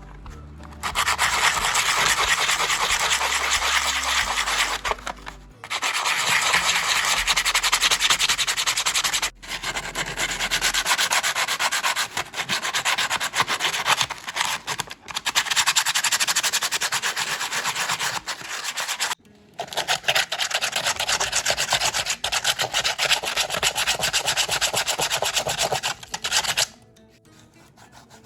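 Abrasive rubbing, like sandpaper worked against a hard surface, in several long stretches with brief breaks. It stops about a second and a half before the end.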